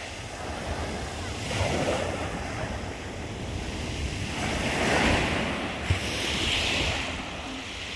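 Black Sea waves breaking and washing up the shore, the rush swelling about two seconds in and again around five seconds, with wind buffeting the microphone.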